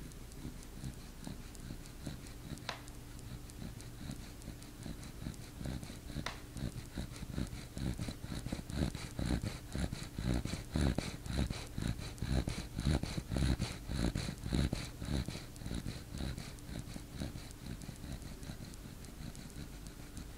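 Puppy snoring in its sleep: quick, short snoring breaths a few a second, growing louder in the middle and easing off toward the end.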